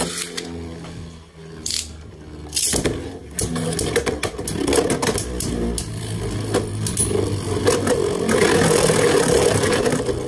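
Two Beyblade Burst tops, Vanish Fafnir and Choz Valkyrie, spinning in a plastic stadium: a steady whirring hum with scraping as they grind over the plastic, and repeated sharp clicks where they collide. The grinding grows louder near the end.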